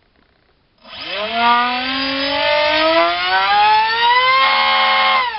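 4000kv brushless helicopter motor spinning a 4.5x4.5 TGS propeller on a 3-cell pack. It starts about a second in with a whine that rises steadily in pitch as it is throttled up, holds near full throttle from about four and a half seconds with a denser, rougher tone, then winds down at the end. The prop is causing vibration, which the operator puts down to the propeller not being balanced well enough.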